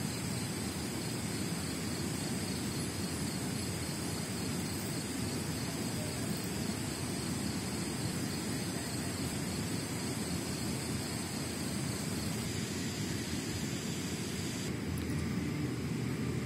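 Steady rushing of a flowing river, with a continuous high insect chorus over it.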